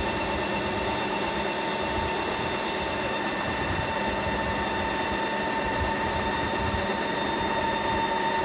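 Ninja Creami ice cream maker running its Ice Cream program, its motor driving the paddle through the frozen tub: a steady, high-pitched mechanical whine with several fixed tones.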